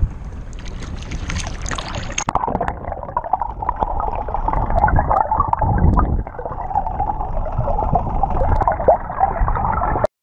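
Water gurgling and splashing around a small fishing boat, with wind rumble on the microphone; a rougher, hissier splash in the first two seconds.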